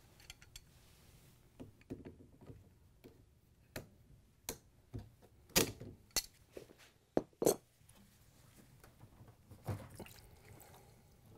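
Pliers clicking against a spring-band hose clamp as it is worked up a washer's corrugated rubber drain hose at the drain pump fitting. The clicks and clinks are scattered and sharp, and the loudest come in a cluster about halfway through.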